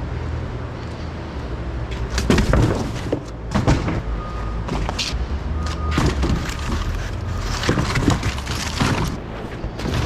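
Repeated knocks, scrapes and clatter from debris being cleared out of an empty semi trailer, starting about two seconds in, over a low steady rumble.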